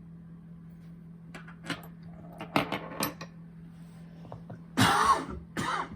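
Small metallic clicks and taps as a deadbolt's pins and parts are handled, then a man coughs twice near the end, the first cough the loudest sound.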